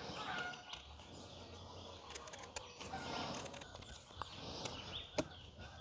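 Quiet rural background with birds calling, and a few faint clicks and soft scrapes of a small knife peeling the skin off a breadfruit.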